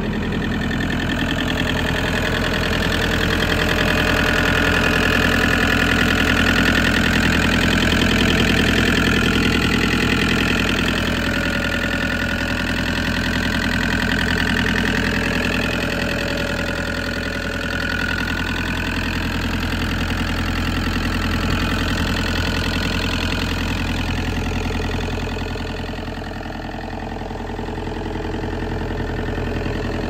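Komatsu PC50UU-2E mini excavator's diesel engine idling steadily.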